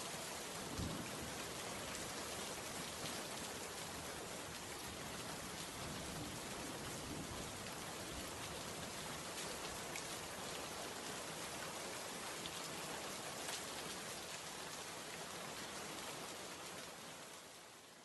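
Steady, even hiss like falling rain, with a faint low knock about a second in; it fades out near the end.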